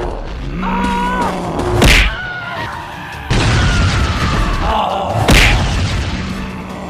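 Cartoon sound effects over a music bed: a heavy thud about two seconds in, a sweeping noise with a slowly falling tone from about three seconds, and a second heavy thud about five seconds in.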